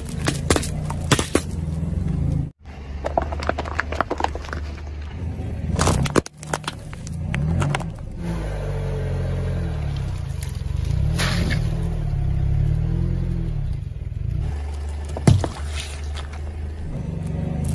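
A car's tyre slowly rolling over and crushing plastic-wrapped things on asphalt, such as freeze-pop tubes and a drink pouch, with crackling, popping and a few sharp snaps over the car's low, steady engine running. The crushing comes in separate bouts, the loudest snaps about six, eleven and fifteen seconds in.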